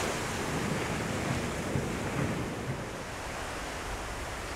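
Ocean surf washing up a sand beach, a steady rushing noise that eases slightly after the first couple of seconds.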